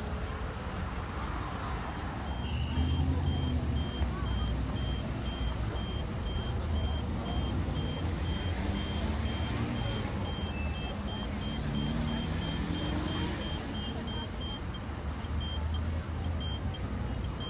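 Pedestrian crossing signal beeping, with quick, evenly spaced high beeps that start about two seconds in and grow irregular near the end, signalling that the crossing is open. Under it is the low rumble of idling and passing cars.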